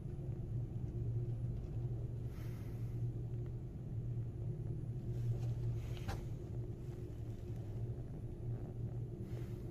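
Hyundai Elevator passenger car climbing between floors: a steady low hum and rumble of the moving car heard from inside the cab, with a single sharp click about six seconds in.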